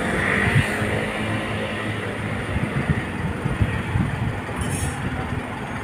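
City street traffic: a vehicle running close by with a steady low hum and rumble.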